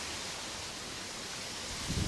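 Steady outdoor ambient hiss with no distinct source, and a brief low thump near the end.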